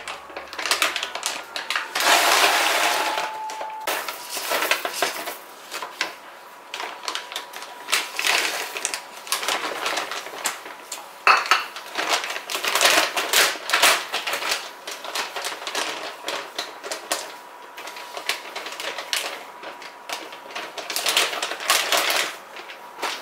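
Dry cat food kibble poured from a bag into a Cielob clear plastic vacuum storage container, rattling in irregular bursts as it hits the container and the growing pile, with the food bag crinkling. A faint steady high tone runs underneath.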